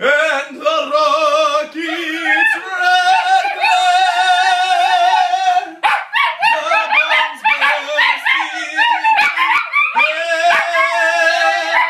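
Two Italian Greyhounds howling together in long, wavering howls, with a short break about six seconds in.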